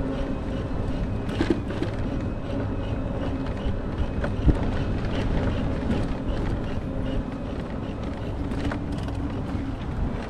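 Riding noise on an Urban Arrow electric cargo bike: a steady rumble with a low steady hum under it, and a few sharp knocks, one about one and a half seconds in, one about four and a half seconds in and one near the end.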